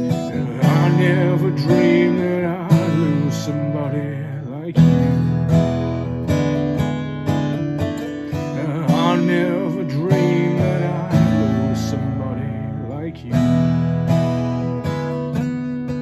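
Martin DRS-1 dreadnought acoustic guitar with solid sapele top, back and sides, played with strummed chords and picked notes. Phrases start afresh with a loud strum about five seconds in and again near thirteen seconds.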